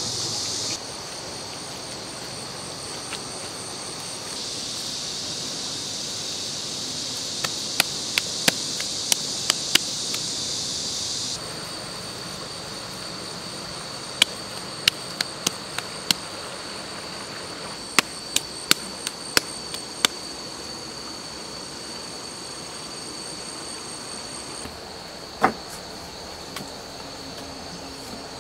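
Steady high-pitched chorus of insects, its level and pitch shifting abruptly a few times. Over it come groups of sharp clicks and taps, then one heavier knock near the end.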